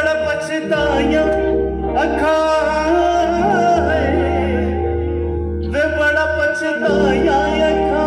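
A small band playing a Hindi song: held keyboard chords and a low bass line under a wavering melody line, with no words sung.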